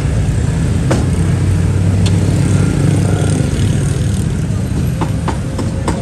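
A motor vehicle's engine running close by, a steady low rumble that is strongest around the middle, with a few sharp clacks and some voices in the background.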